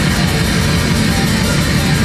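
Live heavy metal band playing at full volume: distorted electric guitars over rapid, dense drumming.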